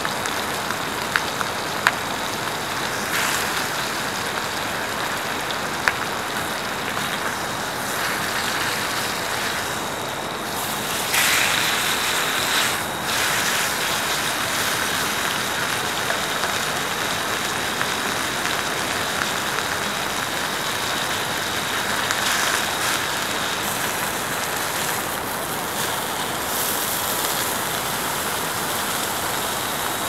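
Meat frying in hot oil in a frying pan: a steady sizzling hiss with a few sharp pops, briefly louder about a third of the way in.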